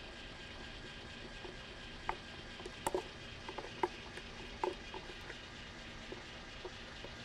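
A plastic blender jar of thick dressing being tipped and scraped out over a glass bowl: scattered faint knocks and scrapes, a few stronger ones about two to five seconds in, over a steady room hum.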